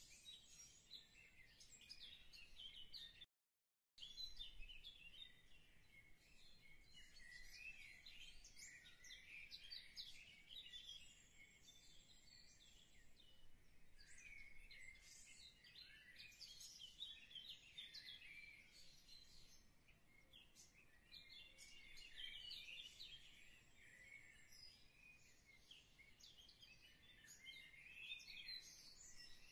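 Faint birdsong: many small birds chirping and twittering continuously, high-pitched, cut off to silence for a moment a few seconds in.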